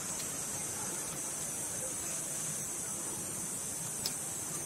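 Steady outdoor background hiss with a bright high band and no distinct event, broken only by one small click about four seconds in.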